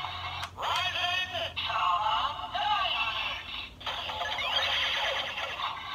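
Attache Calibur toy sword's built-in speaker playing its electronic transformation sounds: a synthesized voice call and music loop with sound effects. It sounds thin, with no low end, and breaks off briefly twice.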